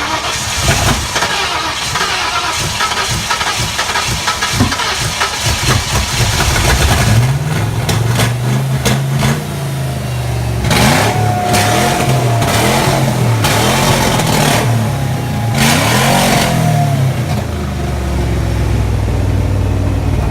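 Freshly rebuilt 5.0-litre V8 being cranked and sputtering for several seconds, then catching about seven seconds in. It is revved up and down several times before settling to a steady idle. It runs in a way that makes the mechanics decide the ignition timing has to be redone.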